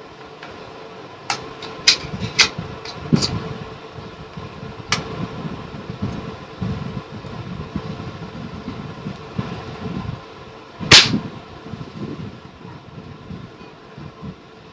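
Air rifle being handled and dry-fired: a handful of short sharp clicks in the first five seconds, then one louder sharp 'khat' about eleven seconds in as the unloaded rifle is fired, with no shot report.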